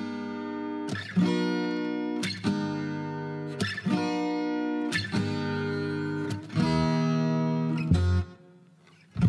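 Acoustic guitar music: strummed chords, each new chord struck about every second and a half and left to ring, dying away about a second before the end.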